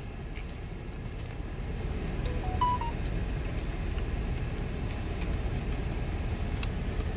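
Steady low rumble inside a car. About two and a half seconds in, a short rising run of electronic beep tones sounds.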